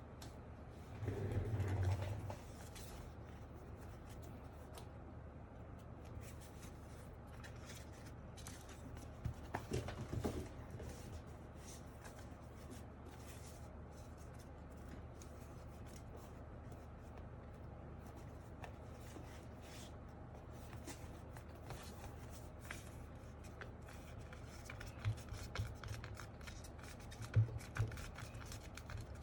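Foam sheet being handled, trimmed and pressed in to line the bottom of a mechanical keyboard case: rubbing and scraping with scattered small snips and clicks, a few louder handling noises about a second in and around ten seconds in, and sharper clicks near the end.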